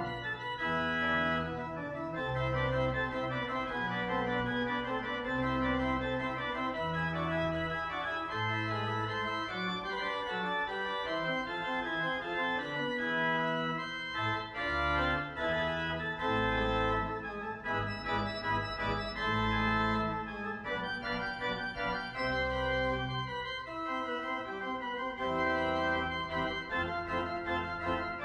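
Organ postlude: slow, held chords over a bass line that moves to a new note every second or so.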